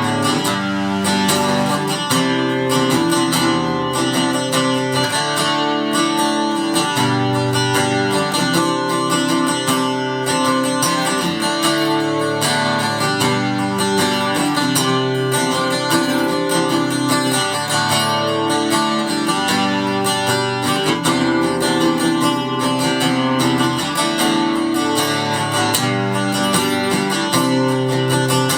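Chibson J200 copy acoustic-electric guitar played through a Marshall AS50D acoustic amplifier at a clean, mid-range setting, strumming a steady run of chords that change every second or two.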